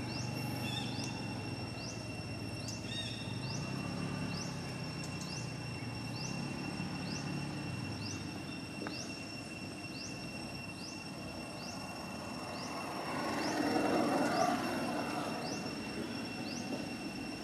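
Outdoor ambience of insects: a steady high drone, with a short rising chirp repeating about once a second. A low rumble fades out in the first half, and a louder rush of noise swells up for a couple of seconds near the end.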